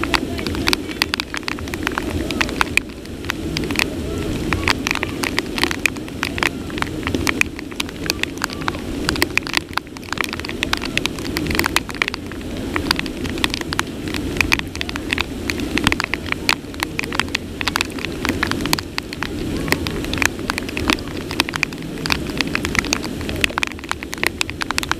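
Heavy rain pouring down: a continuous rushing noise under a dense, irregular patter of drops striking close to the microphone.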